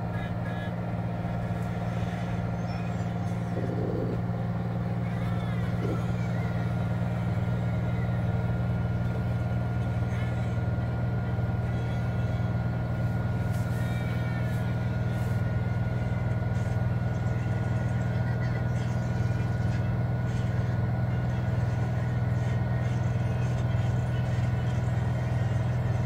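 Samsung front-loading washing machine with a digital inverter motor running: a steady low hum with a faint high whine, getting slightly louder over time.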